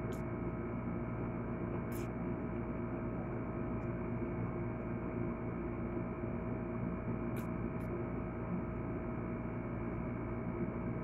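Steady electrical hum made of several held tones, with a few faint short clicks about 2 s in and twice around 7.5 s.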